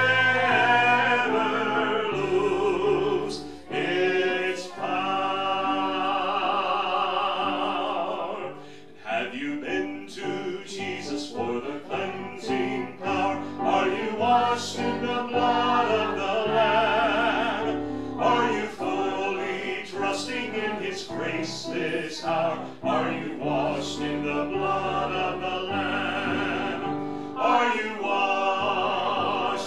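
Church worship music: singing with a wide vibrato over instrumental accompaniment with sustained low notes.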